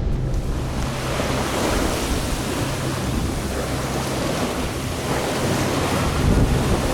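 Strong wind blowing across the microphone on a sailboat, with the low steady running of the boat's inboard diesel engine underneath.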